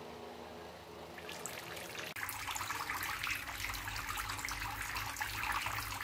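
Water spilling from a small homemade plastic-bottle fountain and falling into a tray of stones, trickling and splashing. It is faint at first and grows louder about two seconds in.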